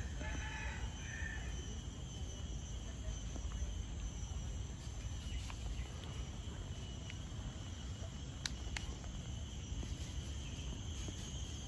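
Garden ambience: a steady, high insect drone over a low rumble, with a few short chirps in the first second or so and a few sharp clicks later on.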